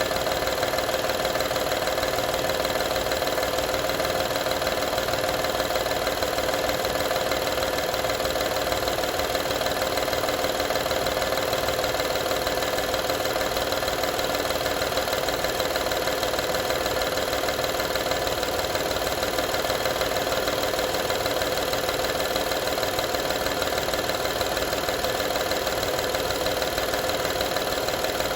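2012 Honda Odyssey's 3.5-litre V6 running steadily at idle with a continuous rattle from a fault that has not been diagnosed.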